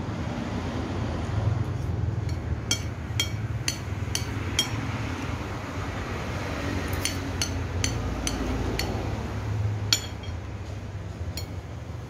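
Metal spoon and fork clinking against a plate while eating. The sharp clinks come in quick runs of four or five, then one or two on their own near the end, over a low steady rumble.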